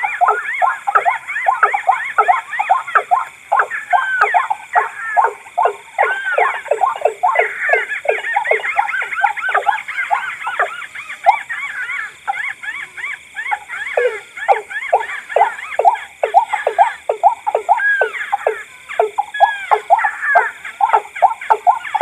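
Overlapping rail calls from a combined bird-call recording of white-breasted waterhen, watercock and a tikusan crake. A fast, unbroken series of short falling notes comes about three a second, with hooked rising-and-falling calls layered over it.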